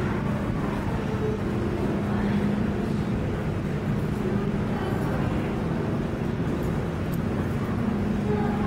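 Steady low hum and rumble of aquarium gallery background noise, an even drone with no distinct events.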